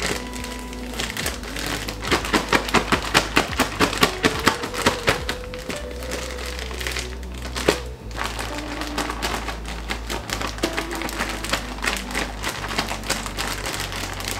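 Plastic bag holding chicken pieces and seasoned flour being shaken, rustling and crinkling in quick strokes, about three or four a second, loudest from about two to six seconds in, over background music.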